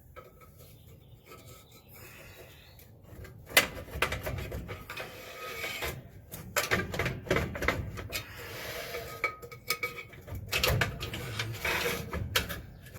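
Quiet at first, then a sharp metal knock about three and a half seconds in. After it comes a long stretch of scraping and rubbing with many clicks and knocks: a stuck drum-brake drum being wiggled and worked off its hub, metal grinding on metal.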